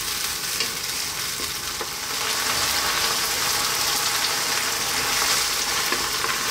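Tomato and tuna sauce sizzling in a nonstick pan on the heat while a wooden spoon stirs it: a steady hiss that grows a little louder about two seconds in.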